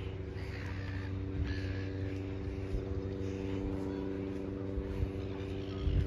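Outdoor ambience on a beachside walking path: a steady low hum from a distant engine runs throughout, with short bird calls over it and the irregular thuds of footsteps.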